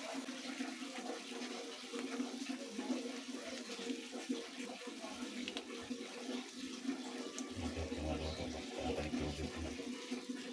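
Water running steadily, as from a kitchen tap, with a few faint clicks.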